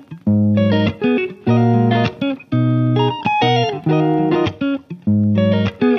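Background music: an upbeat instrumental led by guitar over a bass line, its chords struck in a steady rhythm.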